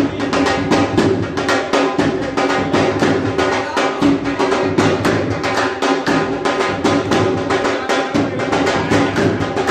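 Dhol drum played live with sticks, a fast, steady dance beat of several strokes a second.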